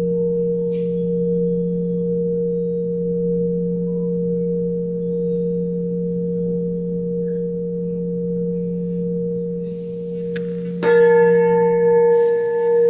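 Tuned metal sound-healing instruments ringing in two steady, sustained low tones. About eleven seconds in, a fresh strike adds a brighter, louder ring with higher overtones, and the lowest tone fades soon after.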